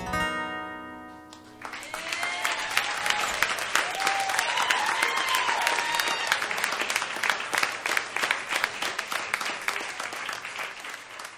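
The last acoustic guitar chord of a live song rings out and fades. Then a concert audience breaks into applause and cheering with a few whoops, which dies away near the end.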